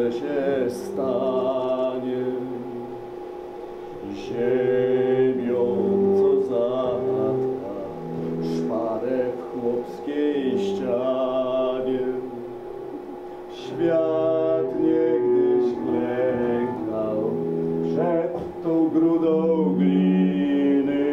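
A man singing a slow song in phrases with short pauses between them, over a steady held drone.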